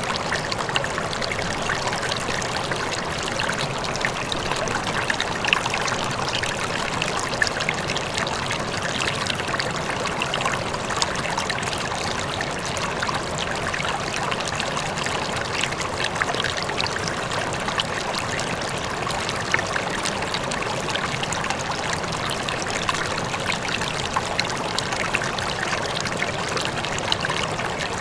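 River water flowing steadily over rocks, an even rushing and babbling with small splashes.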